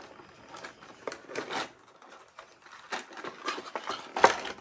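Stiff clear plastic blister packaging being handled and pried open: irregular crinkling and clicking of the plastic, with one sharp, louder click about four seconds in.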